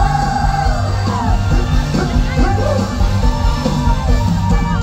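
Live Thai mor lam band music with a singer holding a long vibrato note, then moving into shorter sung phrases over a steady bass beat.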